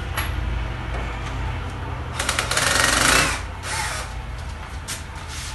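Cordless drill-driver with a screwdriver bit running while undoing the housing screws of a Mercedes alternator. A low steady motor hum is broken by light clicks, with a louder stretch about a second long near the middle.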